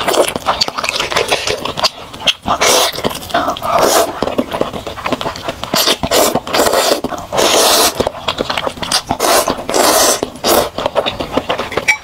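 Close-miked eating of spicy instant noodles in chili broth: loud wet slurps and chewing in repeated noisy bursts, with sharp mouth clicks and smacks between them.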